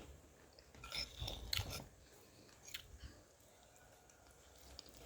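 A person chewing a mouthful of food close to the microphone: a cluster of wet chewing and smacking noises about a second in, then a few scattered mouth clicks.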